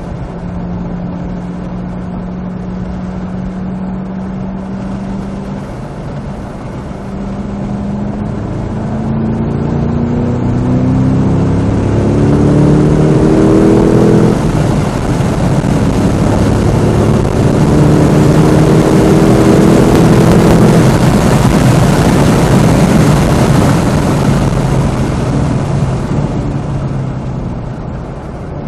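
Cadillac CT5-V Blackwing's supercharged 6.2-litre V8 under full throttle: the engine note holds steady for a few seconds, then rises in pitch through one gear, breaks for a manual upshift about halfway in, and climbs again. Near the end the engine note gives way to loud wind and tyre noise and the level drops as the car comes off the throttle.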